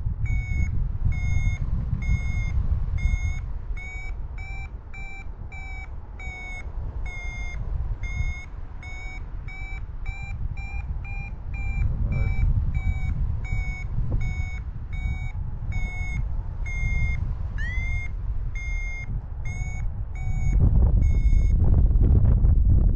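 Paragliding variometer beeping: short high beeps about two a second, coming faster and slightly higher in pitch in the middle, the climb tone of a glider rising in a thermal. Wind noise on the microphone rumbles underneath and grows loud near the end.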